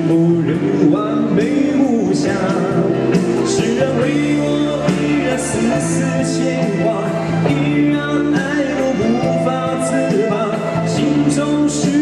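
Man singing a slow Mandarin pop song live into a microphone, over sustained electronic keyboard chords and guitar.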